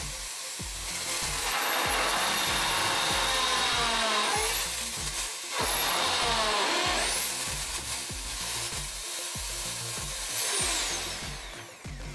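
Electric drill in a drill press stand cutting through a wooden board with a hole saw, its motor whine sagging under load and recovering twice. Near the end the drill is switched off and spins down.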